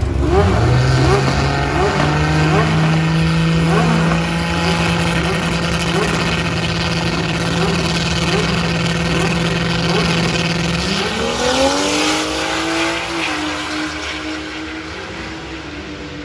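Turbocharged Toyota 4Runner engine held at a steady rpm on the drag strip starting line, then rising in pitch about eleven seconds in as the truck launches and accelerates down the track, fading as it pulls away.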